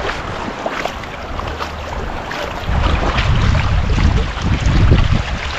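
Running river water below a dam, with wind buffeting the microphone. The low rumble grows stronger about three seconds in and eases near the end.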